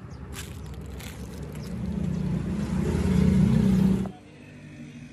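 A motor vehicle's engine running nearby, growing steadily louder for about three seconds, then cutting off abruptly about four seconds in.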